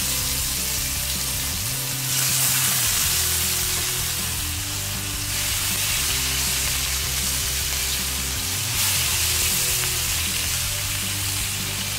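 Spice-coated catfish pieces sizzling as they shallow-fry in hot olive oil, a dense steady hiss that swells now and then. Background music plays beneath it.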